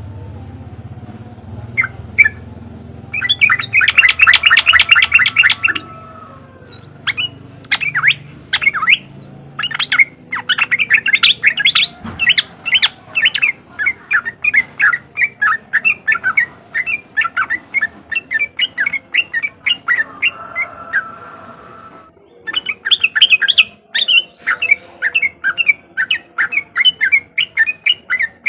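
Yellow-vented bulbul (trucukan) giving its chattering 'riwik' call in fast runs of short notes, about two to three a second, with a dense burst about four seconds in and a brief pause near the end before it starts again.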